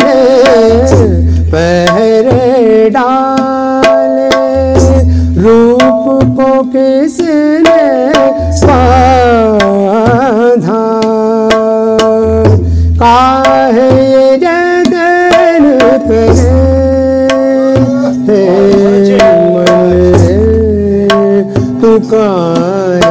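Harmonium and tabla playing an instrumental interlude of a Hindi film bhajan: a steady keyboard melody over quick tabla strokes, with a deep tabla bass note about every four seconds.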